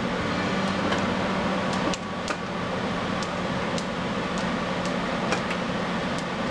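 Mahjong tiles clicking sharply as they are drawn and discarded on a mahjong table, about one click a second, over a steady mechanical hum.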